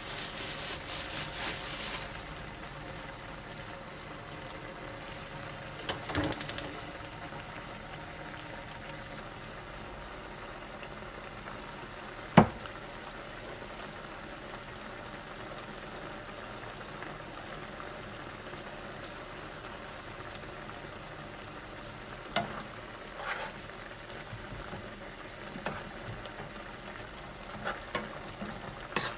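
A pan of meat, cabbage and bean sprouts sizzling and simmering steadily on the stove, with a few clinks of a utensil against the pan and one sharp clack about twelve seconds in.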